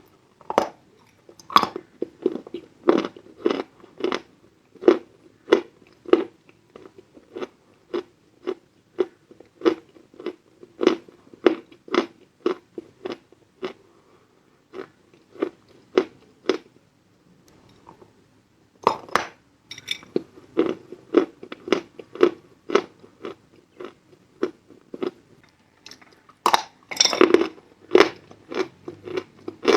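Pieces of edible chalk being bitten and chewed close to the microphone: a steady run of dry crunches, about one or two a second, with a short pause a little past halfway and denser, louder crunching as fresh bites are taken.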